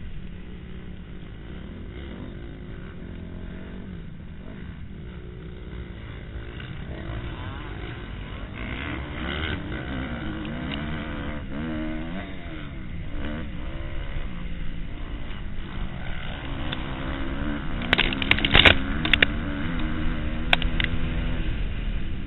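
Motocross bike engine revving up and down as it runs through the gears at race pace, with heavy wind noise on the microphone. A few sharp knocks come in a quick cluster near the end.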